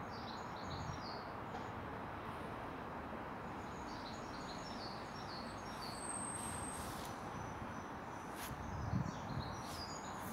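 Small birds chirping in short repeated phrases over a steady outdoor background hiss, with a brief low thump near the end.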